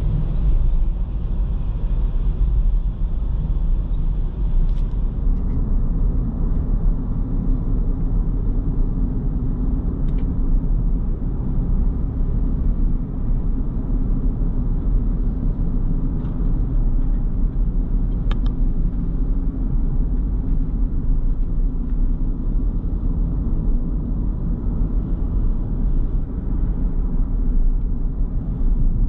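Steady low rumble of a motor vehicle, with a few faint ticks.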